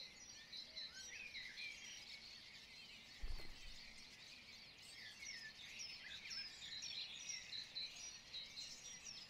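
Faint birdsong: many small birds chirping in quick, repeated short notes. A brief low thump about three seconds in.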